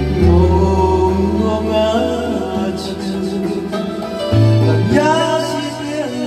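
Music with singing: a backing track with sustained bass notes and a melody line.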